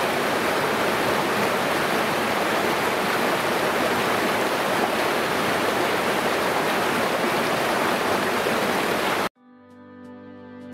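Steady rush of a mountain creek's cascading water. About nine seconds in it cuts off abruptly and quiet instrumental music with plucked notes begins.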